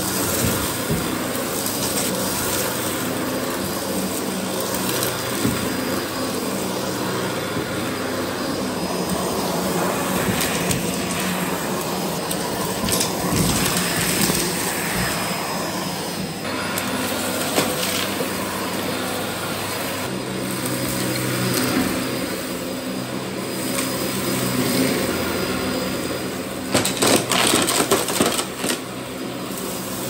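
Dyson DC04 De Stijl upright vacuum cleaner running steadily while sucking fluff and grit off a carpet, with scattered crackles. Near the end comes a burst of loud, irregular rattling as debris is pulled through.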